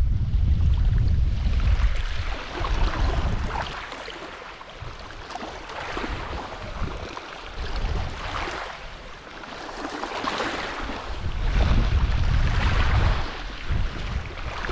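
Wind buffeting the microphone in gusts, with small waves washing onto the shore every couple of seconds.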